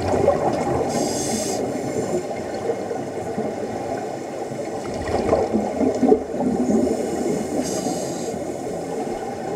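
Underwater gurgling rumble of scuba divers' exhaled bubbles, heard from beneath the surface of a pool, with two short hisses, one about a second in and one near the end.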